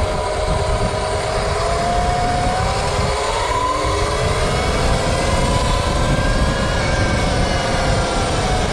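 Sur-Ron LBS electric youth dirt bike under way: a whine from its motor and new 219 chain drive rises in pitch as it speeds up about three seconds in, holds, then starts to fall near the end. Wind rumble sits underneath. The chain is noisy, which the owner puts down to tensioning it a little too tight and a brand-new chain that still needs to stretch.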